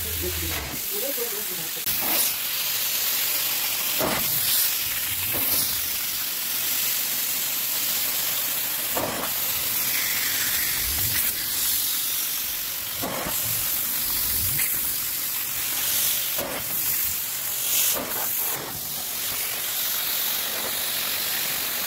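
Upholstery extraction tool on a hose: the extractor's vacuum hisses steadily as it pulls air and water through the tool's head, with a short louder rush every second or two.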